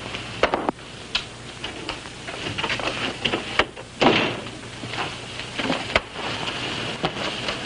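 Scattered clicks and knocks of movement in a room, with a louder rushing sound about four seconds in, over a steady low hum.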